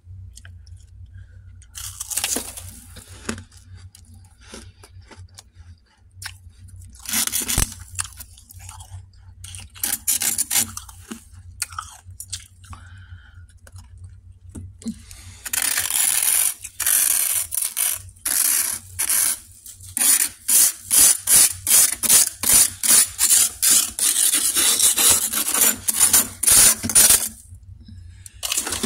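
Frost being scraped off the inside of a freezer: scattered scrapes and crunches at first, then a fast, even run of scraping strokes, about three a second, from about the middle until near the end.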